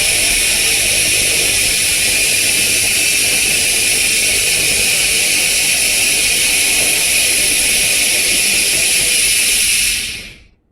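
Handheld fiber laser cleaning head firing on a metal surface: a loud, steady high-pitched hiss that cuts off near the end.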